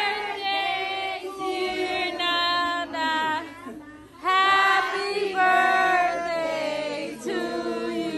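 A group of voices, children's among them, singing a birthday song together with long held notes. There is a short break about four seconds in.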